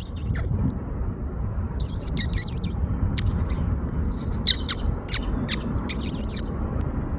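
Wild songbirds chirping in quick, short high notes, in two busy clusters, one about two seconds in and another near the five-second mark, over a steady low rumble.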